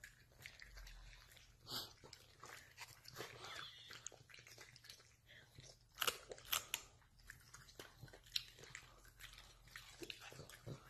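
Dogs chewing crunchy treats: scattered crisp crunches and smacks of the mouth, loudest in a cluster about six seconds in.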